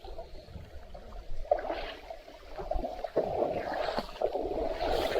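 River water splashing and gurgling in uneven sloshes, louder after about three seconds.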